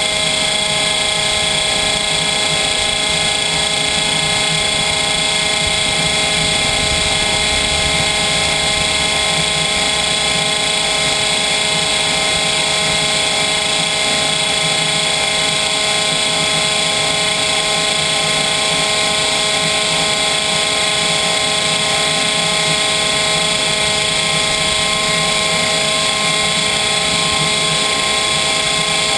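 Homemade gas turbine running at a steady speed: a constant high whine with several held tones over a rushing noise. It is turning its nylon reduction gears with no generator load attached.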